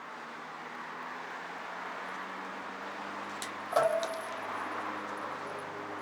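Metal lock being handled: a few sharp metallic clicks and a clank with a brief ring, about three and a half to four seconds in, over steady background noise.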